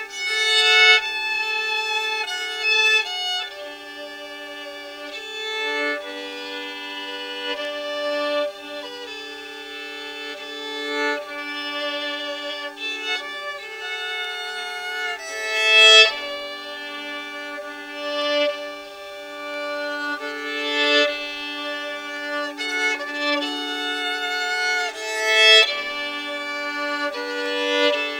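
Violin playing a slow melody of held, swelling notes.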